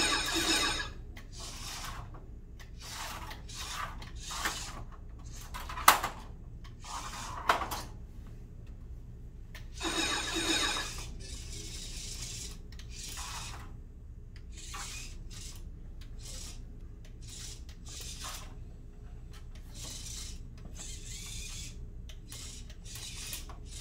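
Small VEX IQ robot's electric motors whirring in many short bursts as it drives, turns and stops, with two sharp knocks about six and seven and a half seconds in, over a steady low hum.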